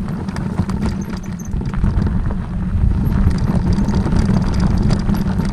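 Vehicle driving over rough ground: a steady low engine and road rumble with frequent knocks and rattles.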